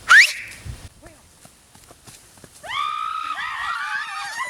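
A sharp, quickly rising whistle, then, about two and a half seconds later, a long, high, wavering call in answer.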